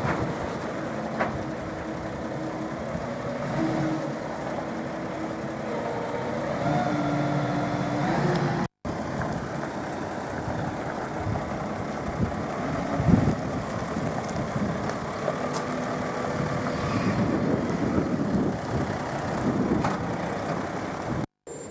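Heavy diesel site machinery running steadily, with an engine tone that steps up in pitch a few times during the first half. The sound cuts out for an instant about nine seconds in.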